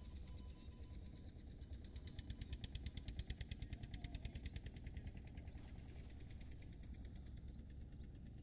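Outdoor field ambience: a low steady rumble, with a fast run of sharp clicks, about ten a second, from about two to five seconds in, and short high rising chirps repeating about once a second.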